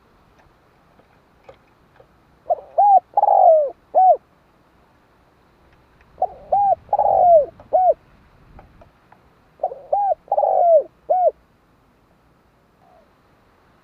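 Spotted dove (cu gáy) cooing: three phrases a few seconds apart. Each phrase is two short coos, a longer coo that falls in pitch, and a short final coo.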